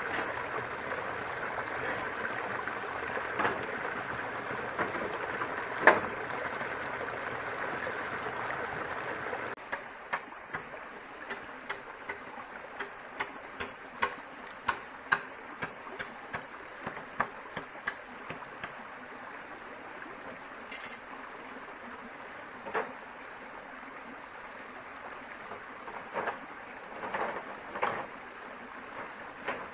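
A steady rushing noise that stops abruptly about ten seconds in, giving way to a quieter background with a quick series of sharp clicks and knocks, several a second at first and sparser later.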